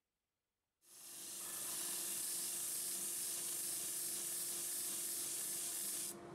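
Bench disc sander running with a steady electric-motor hum while a small hardwood panel is pressed to the spinning abrasive disc. The steady hiss of sanding the glued-in pine inlay flush starts about a second in and cuts off near the end, leaving the motor hum.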